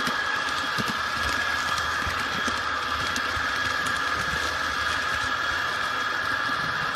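HO-scale model train running along the layout's track: a steady small-motor and gear whine with faint light ticks of the wheels over the rails.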